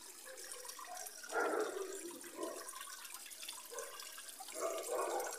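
Water from a small rock cascade running steadily and trickling into a garden fish pond.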